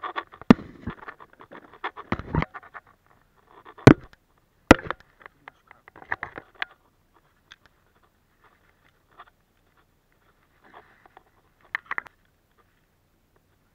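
Irregular sharp knocks, clicks and scrapes of a fishing rod and baitcasting reel being handled in a plastic kayak, frequent at first and then thinning out, with a last loud pair of knocks near the end.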